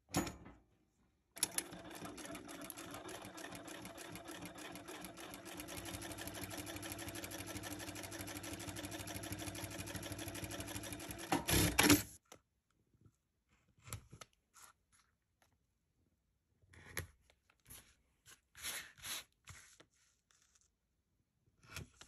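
Consew 7360R industrial lockstitch sewing machine running a steady seam through vinyl mesh and zipper tape for about ten seconds, a little louder from midway, and stopping with a brief louder clatter. Afterwards a few scattered light clicks and rustles as the material is handled.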